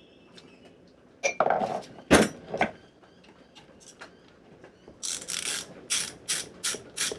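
A few knocks and clatters of metal engine parts being handled on the bench. Then, from about five seconds in, a ratchet clicks in short, quick strokes, about three to four clicks a second, as a fastener on the outboard power head is run in.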